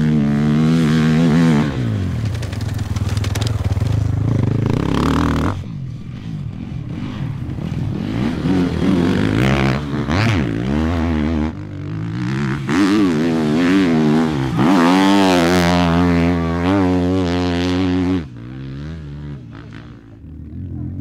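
Dirt bike engines revving hard through a dirt corner and over a jump, the pitch climbing and falling with each throttle blip and gear change. Several bikes pass in turn, and the engine note dips between passes.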